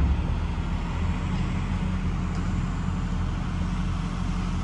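A truck's engine idling, a steady low hum that does not change.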